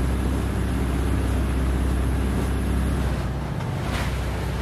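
A fishing boat's engine running steadily underway, a low drone under a hiss of wind and water, with a short click about four seconds in.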